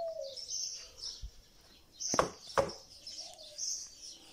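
Small birds chirping repeatedly, with two sharp knocks a moment apart about two seconds in.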